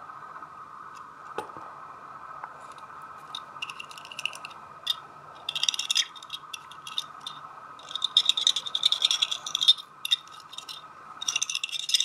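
Small metal lock pins rattling and clinking inside a Euro pin-tumbler cylinder as it is tipped and shaken to free them, in four or five short bursts of quick metallic clicking.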